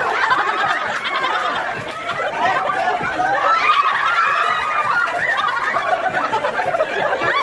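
A group of people laughing and shouting over one another, many voices at once.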